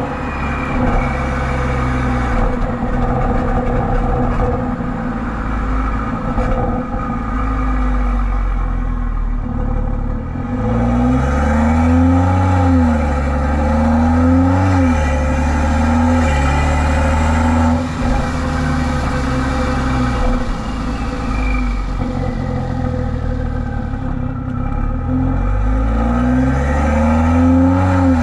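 Exhaust of a BMW 340i's B58 turbocharged 3.0-litre straight-six with a catless downpipe, driven at light throttle with the exhaust valves closed. It holds a steady drone, and partway through the pitch rises and drops several times in quick succession, then climbs again near the end.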